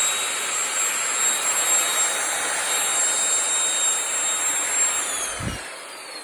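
X-Gold diamond core drill's electric motor running free at full speed with a steady high whine. About five seconds in it is switched off and winds down, the whine falling in pitch and fading.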